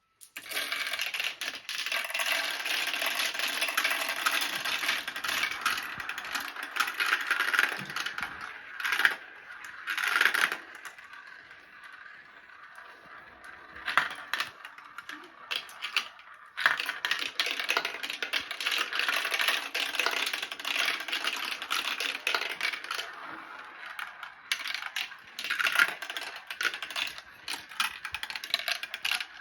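Marbles rolling and clicking down a marble run track, a dense rattling clatter that thins out for several seconds around the middle, then picks up again.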